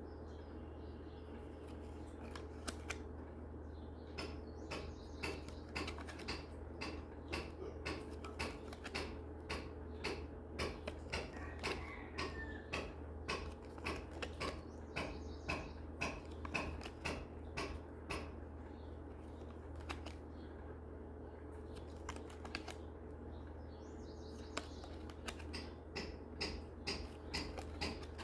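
A run of light, irregular clicks and taps, one to two a second and thickest in the middle and near the end, over a steady low electrical hum.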